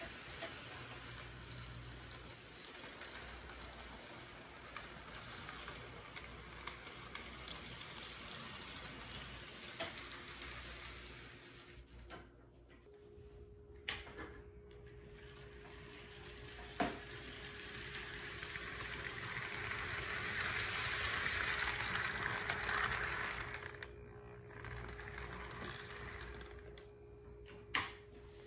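AHM model of the Illinois Central 382 steam locomotive running on the layout's track: a faint whir of its motor and wheels on the rails. It swells to its loudest about twenty seconds in as the engine passes close, then fades, with a few light clicks along the way.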